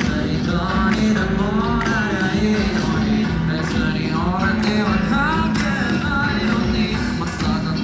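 Music: a pop song with a singing voice over guitar and a steady bass line.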